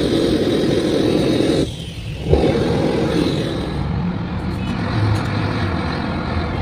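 A hose-fed gas blowtorch running loudly as it blasts flame into a cast iron cylinder packed with burning charcoal. It cuts off suddenly after about a second and a half, followed by a single knock and a quieter, steady hiss and low hum.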